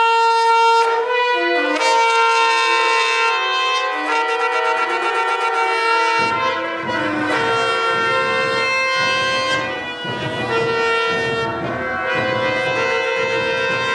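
Long curled shofar blown in sustained notes that shift between a few pitches. About six seconds in, a steady low beat joins underneath it.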